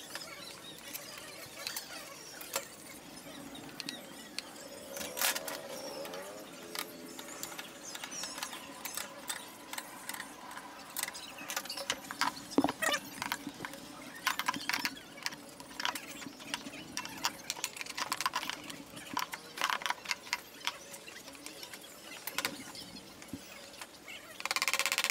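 Irregular clicks, clinks and knocks of hand tools and metal parts being handled while a scooter engine is assembled by hand, with a brief squeak about five seconds in.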